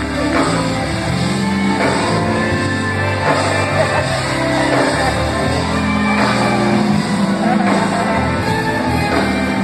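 Live gospel band playing, with drum kit, electric guitar and bass guitar, and a voice singing over the music.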